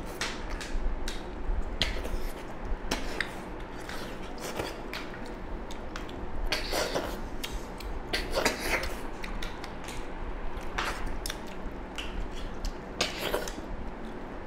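Close-up eating sounds of two people eating snail and pork curry with their hands: scattered wet mouth clicks and smacks of chewing and sucking, with a couple of longer, noisier sounds about seven and eight and a half seconds in.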